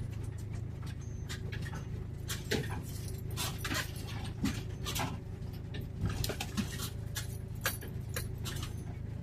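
Old van's engine running steadily while driving, heard from inside the cab, with irregular short clicks and knocks over it.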